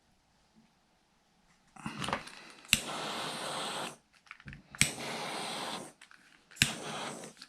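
Short hissing blasts from the heat source shrinking heat-shrink tubing over a freshly soldered battery-lead connector. There are four in all, each opening with a sharp click and cutting off after about a second.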